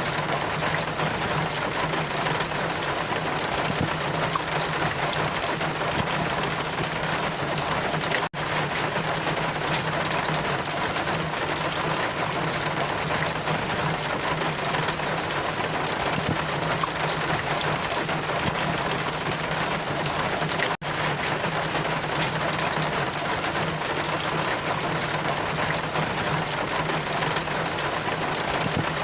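Steady rain with wind, a dense even hiss that cuts out for an instant twice, about 8 and 21 seconds in.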